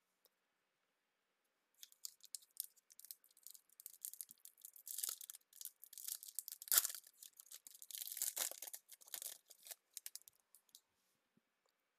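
Foil wrapper of a 2021 Bowman baseball card pack being torn open and crinkled: a run of crackling that starts about two seconds in, is loudest in the middle and dies away near the end.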